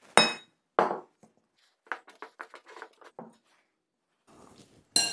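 Metal clinking and scraping against a glass mixing bowl as stiff pizza dough is stirred with a fork. A ringing clink comes at the start and another just after, then soft clicks and scrapes, then a second ringing clink near the end.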